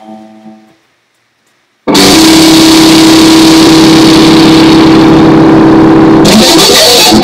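Les Paul electric guitar: a chord rings out and dies away, then after a short silence a loud, distorted single note is held steady for about four seconds before quick changing notes are picked near the end.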